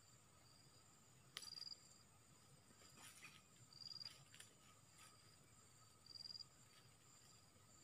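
Faint steady drone of insects, with a short high chirp that comes three times, about every two and a half seconds, and a few faint clicks.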